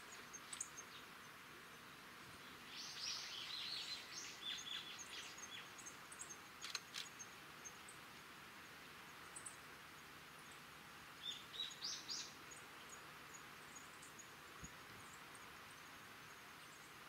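Faint outdoor ambience: an insect chirping in a steady, fast, even rhythm of high ticks, over a constant hiss. Birds call in two short flurries of chirps, a few seconds in and again about two-thirds of the way through.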